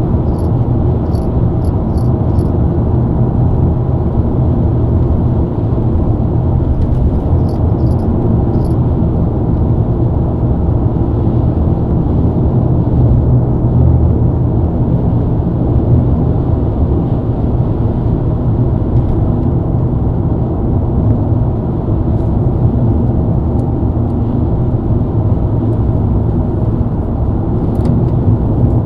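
BMW E90 323i's inline-six engine and tyre noise at a steady highway cruise: a constant low drone with no revving or gear changes.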